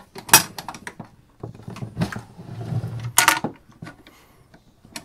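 A steel ammo can being opened: a sharp metallic clack as the latch is flipped open, then knocks and a scraping clatter as the metal lid swings up and the box is handled.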